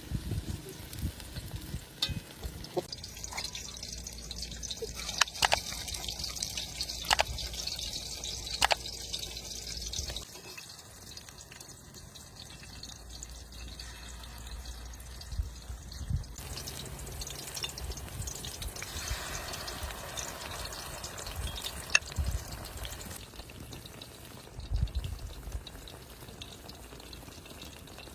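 Cutlets sizzling in hot oil in a pan, a steady hiss that swells and eases, with a few sharp clicks.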